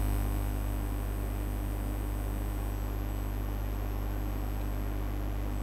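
Steady low electrical hum with a faint hiss and no other events: mains hum picked up in the recording.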